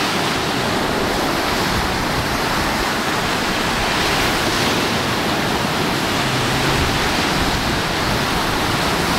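Steady roar of wind and breaking waves on a rough lake, with wind buffeting the microphone.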